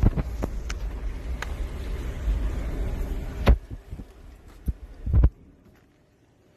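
Low rumble of a vehicle driving over rough ground, heard from inside the cab, with several sharp knocks and bumps. It cuts off suddenly a little after five seconds, leaving a faint hush.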